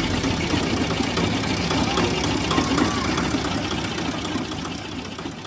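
Engine of a street sugarcane juice crusher running steadily, with faint voices in the background; the sound begins to fade near the end.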